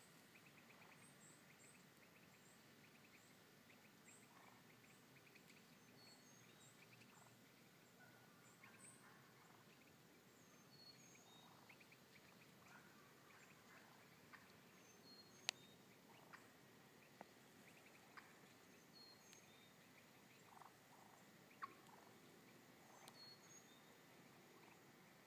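Faint calls of hen wild turkeys in short scattered notes, with small high songbird chirps throughout and a few sharp clicks, the loudest about halfway through.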